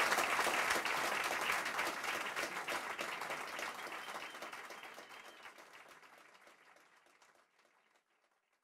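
Audience applauding, a dense patter of many hands clapping that fades steadily and is gone near the end.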